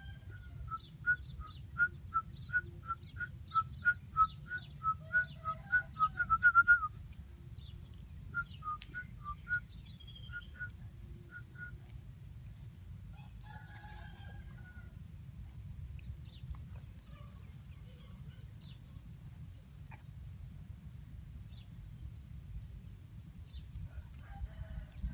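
A bird calling in a run of short, evenly spaced notes, about two to three a second, that quicken and grow loudest about six to seven seconds in, followed by a few shorter groups of the same notes.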